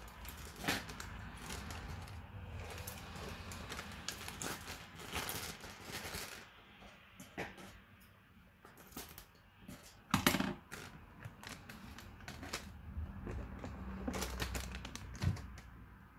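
Irregular kitchen clatter: clicks and knocks of cookware and food being handled, with the loudest knock about ten seconds in and another sharp one near the end.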